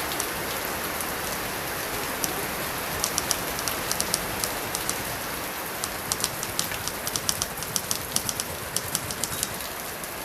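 Steady light rain, with typewriter keys clacking over it in short, irregular runs.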